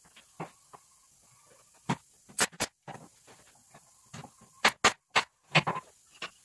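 Irregular sharp knocks and clicks of wooden parts being handled and set down, about a dozen in all, loudest in a cluster near the end.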